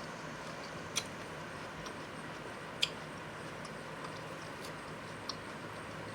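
Quiet eating: a few sharp, short mouth clicks from chewing, one about a second in and another about three seconds in, over a steady low hiss.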